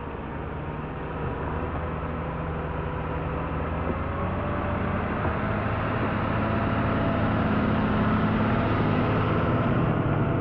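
A large tractor towing an empty slurry spreader drives up and past, its diesel engine running steadily at reduced revs with the PTO off, growing louder as it nears.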